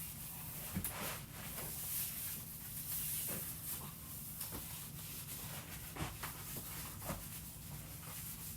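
Wiping down a small refrigerator with sanitizer wipes: soft rubbing with a few scattered knocks and taps, over a steady low hum.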